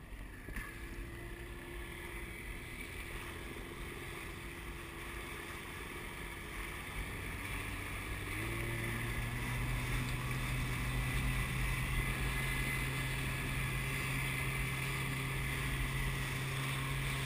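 Outboard motor on an inflatable boat running steadily, then stepping up in pitch and growing louder about eight seconds in as it is throttled up and the boat gets under way.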